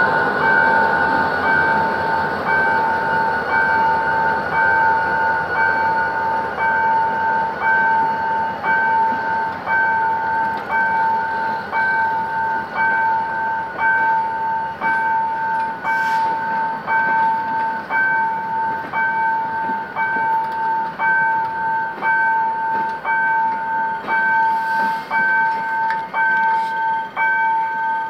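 Level-crossing warning bell ringing in quick, even strokes, a two-tone ring that keeps going, over the rumble of passenger coaches rolling past.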